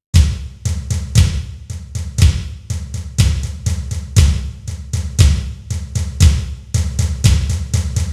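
Drum build-up music cue: kick and snare hits about twice a second over a low sustained bass tone, with extra strokes between the beats that crowd closer together near the end like a roll.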